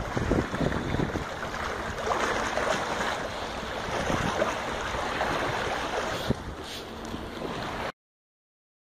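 Wind buffeting the microphone over a steady hiss of water, with a car splashing through floodwater on the road. The sound cuts off suddenly near the end.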